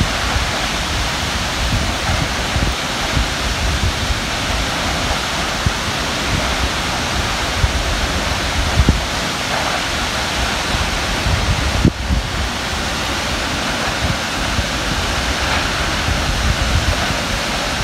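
Gartmore Falls, a waterfall about 25 m high, pouring steadily onto rocks: a loud, unbroken rush of falling water.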